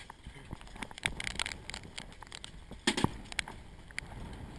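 Handling noise: scattered clicks and knocks with rustling as the phone rubs against a rain jacket, with a louder cluster of knocks about three seconds in.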